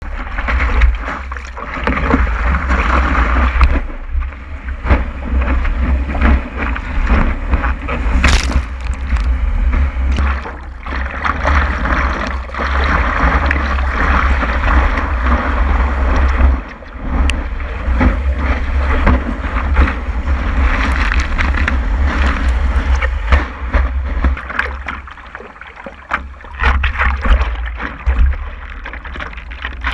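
Water rushing and splashing around the nose of a stand-up paddleboard and its paddle as it rides small waves, with a steady low wind rumble on the board-mounted camera's microphone.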